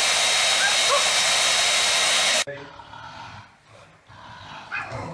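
Handheld hair dryer blowing steadily, with a faint high whine in its airflow and a short rising squeak about a second in. It cuts off abruptly about halfway through, leaving only faint scattered sounds.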